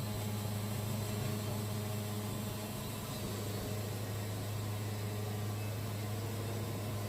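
Portable band sawmill's engine running steadily at an even pitch.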